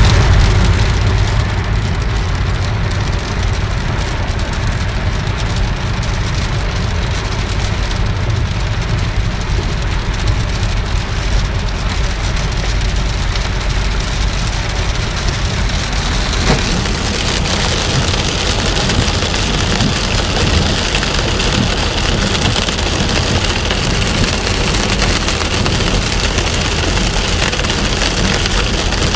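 Rain falling on a car's windscreen and body while driving on a wet road, heard from inside the cabin over a steady low rumble of the car and its tyres. The hiss of rain and spray turns brighter about halfway through.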